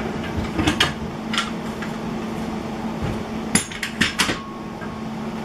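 Metal woodworking clamps clanking and knocking as they are loosened and lifted off a freshly glued-up wood panel: a few sharp clanks about a second in, then a quick cluster of them a little past halfway, over a steady low hum.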